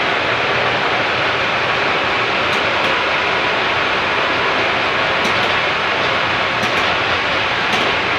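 Electric-motor well-drilling rig running steadily: a loud, even mechanical noise with a few faint ticks.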